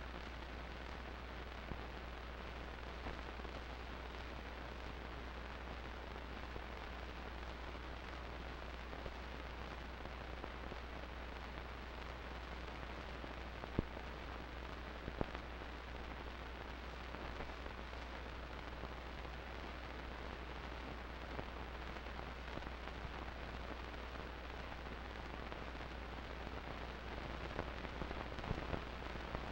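Steady hiss with a constant low hum and scattered clicks, the loudest about fourteen seconds in and a few more near the end; no band music or crowd is heard.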